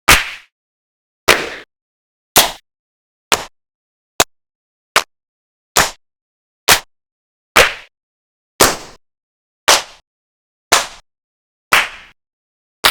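Single hand claps, one at a time, about one a second. Each is a sharp clap that dies away quickly, with silence between claps.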